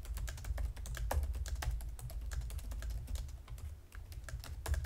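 Fast, irregular typing on a laptop's membrane keyboard, picked up by a desk-mounted USB condenser microphone: a run of soft key clicks with a low rumble beneath them.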